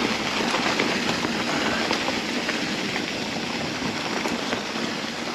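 Mountain bike rolling along a root-crossed forest trail: a steady rushing noise from the tyres and moving air, with small knocks and rattles.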